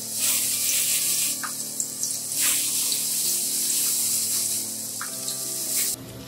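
Starch-coated chicken pieces deep-frying in hot oil in a frying pan for karaage, a loud sizzling hiss that swells several times as more pieces are dropped in by hand. The hiss drops sharply near the end.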